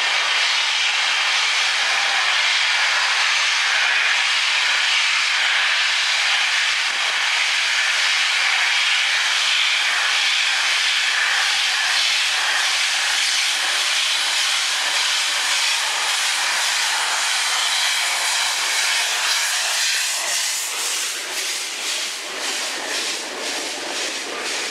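LMS Class 5MT 4-6-0 steam locomotive No. 44871 passing close, with a loud, steady hiss of escaping steam. Near the end the hiss eases and a quick, regular run of clicks sets in as the coaches roll over the track.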